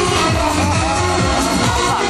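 Electronic dance music with a steady kick drum about twice a second.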